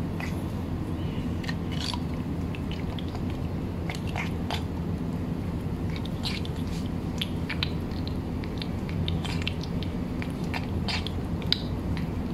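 A cat eating wet cat food: irregular small wet clicks and smacks of chewing and licking. Under it runs a steady low hum.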